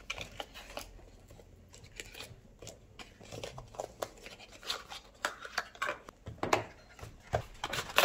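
Small cardboard boxes opened by hand: flaps pulled open and paper rustling, with irregular small clicks and knocks as the boxes and speed cubes are handled, busier in the second half.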